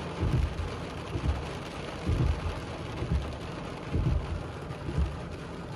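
Rain falling on a car's windshield and body, heard from inside the cabin, with a low thump about once a second as the windshield wipers sweep.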